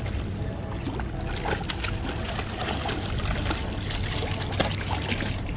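A hooked bluefish thrashing and splashing at the surface, with irregular splashes and water sloshing against rocks over a steady low rumble.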